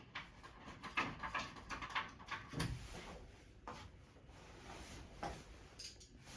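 Scattered clicks and knocks of things being handled in a small room, over a faint background hiss.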